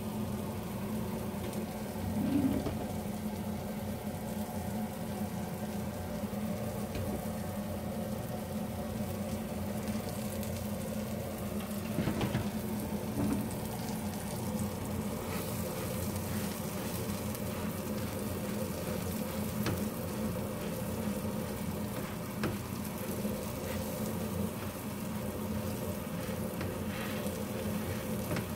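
Eggplant omelettes (tortang talong) frying in oil in a nonstick pan: a steady sizzle over a low hum, with a few knocks of a spatula against the pan.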